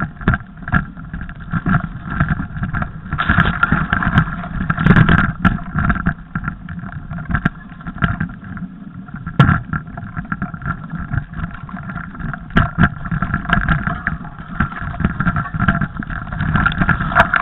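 Mountain bike ridden over a snowy trail, heard from a camera on the bike or rider: a constant rough rumble from tyres and wind, with frequent knocks and rattles as it goes over bumps, over a steady hum.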